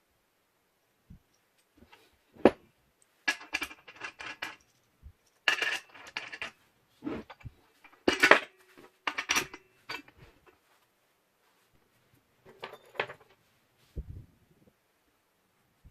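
Metal parts of an angle grinder cut-off stand clinking and clattering as they are handled. The knocks come irregularly, some with a brief metallic ring, and are thickest in the middle with a few more near the end.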